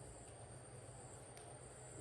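Near silence: room tone with a faint steady low hum and a thin high whine, and one faint click about a second and a half in.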